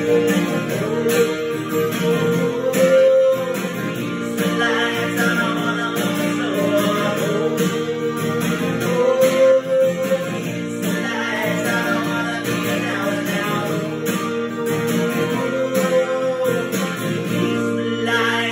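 Steel-string acoustic guitar with a capo strummed in a steady rhythm, with a man singing along.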